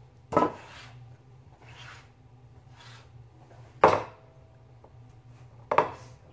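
Kitchen handling noise close to the counter: three sharp knocks of things being handled and set down on the worktop, the loudest about four seconds in and the last a quick double, with faint rubbing between them. A low steady hum runs underneath.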